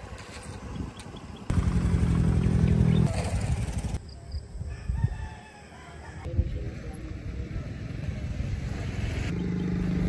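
A rooster crowing in the middle, between stretches of a steady, loud engine-like hum at the start and near the end.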